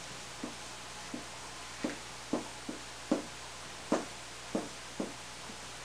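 Dry-erase marker writing Korean letters on a whiteboard: a series of about a dozen short taps and scrapes, one with each pen stroke, roughly half a second apart.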